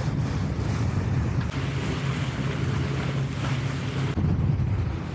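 Wind buffeting the microphone and water washing along the hull of a Dufour 560 sailing yacht under way, heard as a steady low rumble under a hiss.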